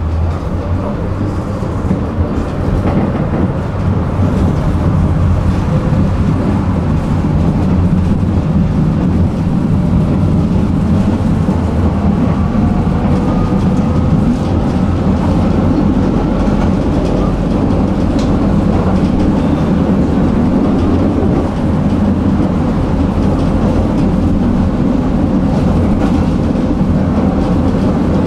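Tram running along the rails: a steady rumble of steel wheels on track that grows louder over the first few seconds, with a faint whine rising slightly in pitch about halfway through.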